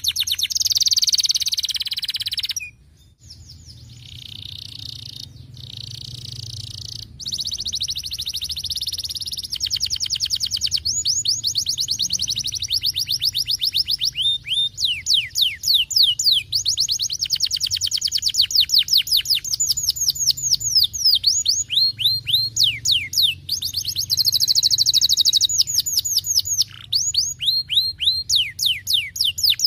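Canary singing in long, fast trills of repeated downward-sweeping notes, the rolls changing speed from phrase to phrase, with a brief break about three seconds in.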